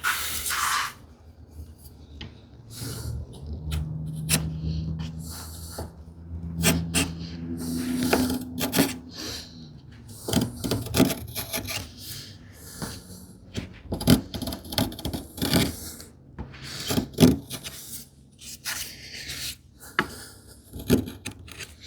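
Wood chisel, held bevel-up, paring thin shavings from the end grain of a small wooden piece in short, irregular scraping strokes, with a few sharp knocks between them.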